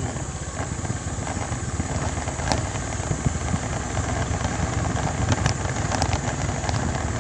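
Small motorcycle engine running steadily as the bike rolls downhill over a rough dirt track, with a few sharp knocks and rattles along the way.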